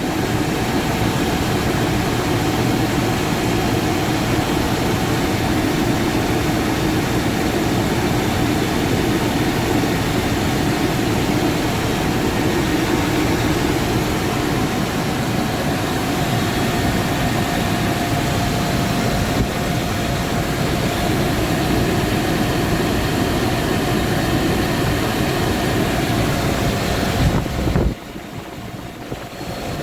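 Chevrolet 5.7 L (350) small-block V8 in a 1995 K1500 pickup idling steadily, with no clear knock standing out. The sound drops off sharply in level a couple of seconds before the end.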